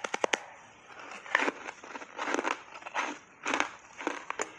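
Reshaped ice coated in matcha and milk powder being bitten and chewed close to the microphone. A quick run of sharp cracks comes first, then crunches follow every half second or so.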